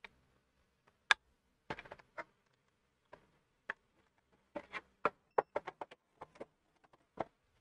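Irregular sharp clicks and light taps of hands handling the reassembled PS4 Pro and its cables, loudest about a second in and again around five seconds in, with a quick run of clicks in the middle.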